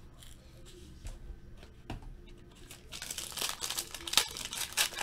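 Foil wrapper of a 2016 Diamond Kings baseball card pack crinkling and tearing as it is opened by hand, starting about three seconds in. Before that, only a few soft knocks as the packs are handled.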